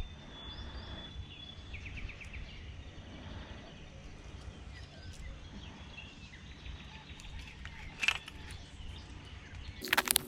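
Outdoor morning ambience: a steady low rumble with faint bird calls chirping. About eight seconds in comes a single sharp click, and near the end a loud burst of rustling and crinkling handling noise.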